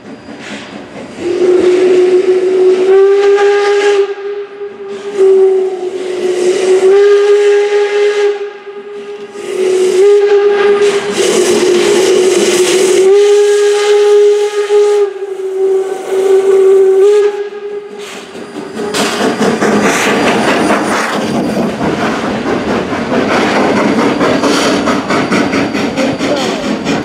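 Steam whistle of Baldwin 0-6-0 steam locomotive #26 blowing a series of long blasts on one steady pitch. About two-thirds of the way through, the whistle stops and a loud, steady rush of steam and exhaust takes over as the locomotive passes close by.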